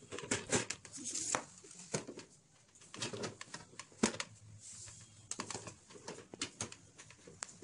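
Plastic household containers and lids being handled and set down: a scatter of light clicks, knocks and rustles, several a second, with brief pauses.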